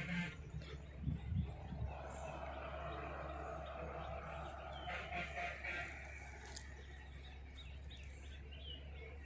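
Open-air forest ambience: small birds chirping now and then over a steady low rumble.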